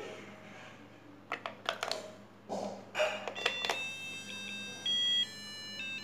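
Batteries clicking into the plastic battery compartment of a cube LED digital alarm clock, then, near four seconds in, the clock powering up and playing an electronic beeping tune whose tones step from pitch to pitch.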